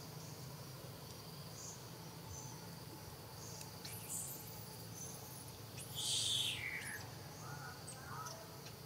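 Outdoor ambience: scattered short high chirps from small animals over a steady low hum. About six seconds in, one louder high-pitched call drops in pitch over less than a second.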